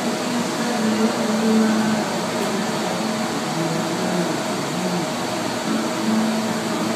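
Steady rushing noise of a glass-melting furnace running with its door open, its burner and blowers going.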